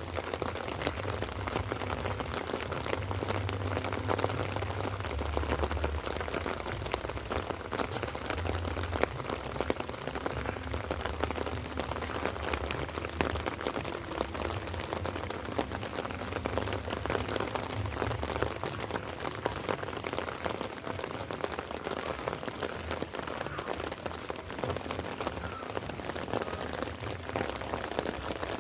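Light rain falling steadily, with many separate drops heard as a dense ticking, and a low rumble under it that fades after the first half.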